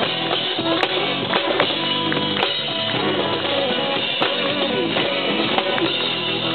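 Live band playing with guitars and a drum kit: held guitar chords with occasional drum hits.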